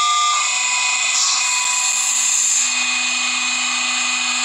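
A heavy crushing machine running steadily, with a constant hum and a hiss of machine noise.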